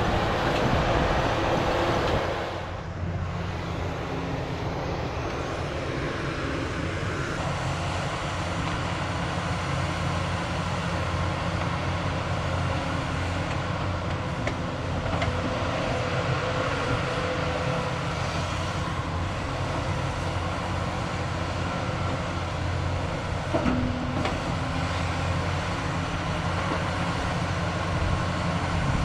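Diesel engine of a CAT 320E excavator running steadily while it digs, a little louder for the first couple of seconds, with one short knock near the end.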